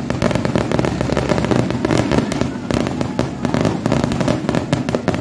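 Aerial fireworks going off overhead in a rapid, irregular string of crackling pops and bangs.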